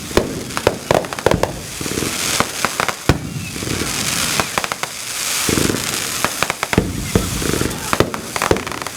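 Fireworks display: an irregular rapid series of sharp bangs from bursting shells, with crackling between them.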